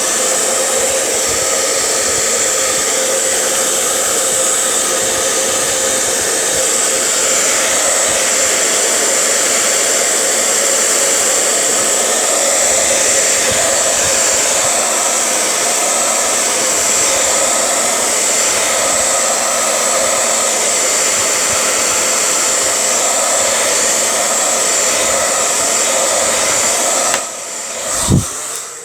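Hand-held blow dryer running steadily, a loud even rush of air, heating the phone's back glass to soften the adhesive beneath it; it cuts off about a second before the end.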